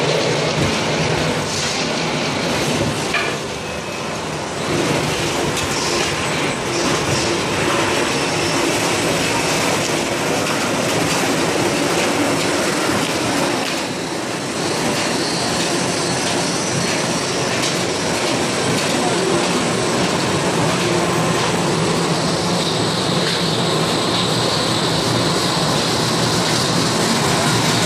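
Veneer peeling machinery running: a steady, loud mechanical clatter and rumble from the rotary peeling lathe and veneer clipper line, with a faint high whine near the end.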